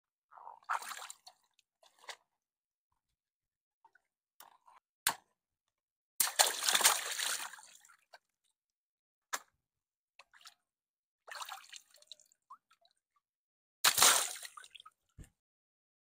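Water sloshing and splashing in a plastic kiddie pool among floating water balloons, in separate bursts. Two longer, louder splashes come about six and fourteen seconds in, and a few short sharp snaps fall between them.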